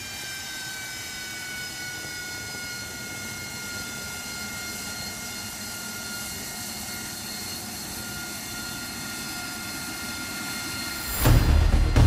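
AV-8B Harrier jump jet's Pegasus turbofan running on the ground, a steady high turbine whine that sinks slightly in pitch over the first few seconds and then holds level. Loud background music cuts in near the end.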